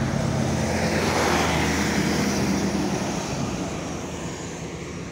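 Diesel engine and tyres of an Isuzu FVM wingbox truck passing close by: a low engine drone and tyre hiss that swell to a peak about a second or two in, then fade as the truck drives away.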